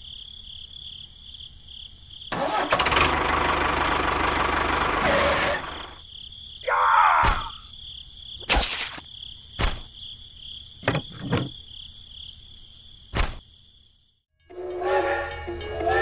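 Edited sound effects over a steady high insect chirring: a motorbike engine running for about three seconds, then a short swoosh and a string of sharp clicks and knocks. A tune begins near the end.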